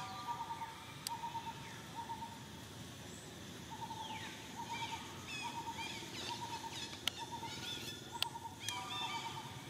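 Wild birds calling: a short trill repeated about once a second, joined from about four seconds in by higher chirps and falling whistles, with two sharp clicks in the second half.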